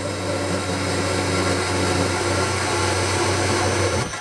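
Circular metal-cutting saw running steadily under coolant as its blade cuts through a square steel bar, a constant motor hum under a grinding hiss. The sound cuts off suddenly near the end.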